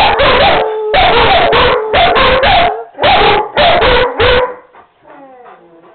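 A German shepherd and a rottweiler howling together, loud and harsh over several long howls in the first four and a half seconds, then fainter, wavering howls.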